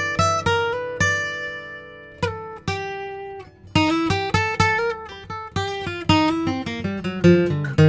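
Martin D-18 Modern Deluxe dreadnought acoustic guitar, mahogany back and sides with a torrefied spruce top, flatpicked in single-note lines. A note is left ringing about a second in, then a quicker run of picked notes starts at about four seconds.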